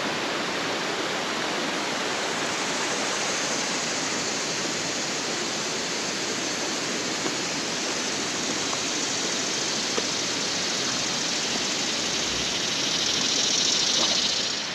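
Flowing river water, a steady rush that grows a little louder near the end.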